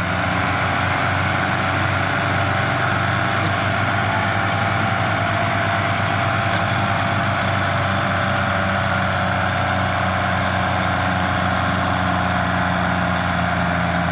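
Diesel engines of two tractors, an NH Ghazi and a Ford 5880, running steadily at constant revs while pulling a loaded brick trolley.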